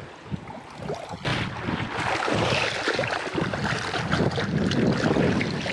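Shallow seawater washing and sloshing around feet in the shallows at the water's edge, with wind on the microphone. The water noise rises sharply about a second in and stays busy.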